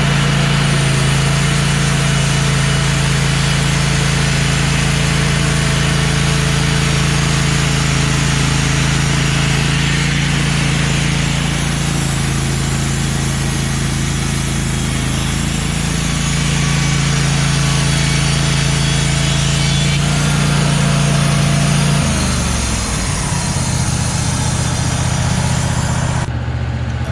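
Wood-Mizer LT15 band sawmill, fitted with a new Turbo 7 blade, running with its engine held at a steady speed. About 22 seconds in the engine note drops, and near the end the high hiss falls away.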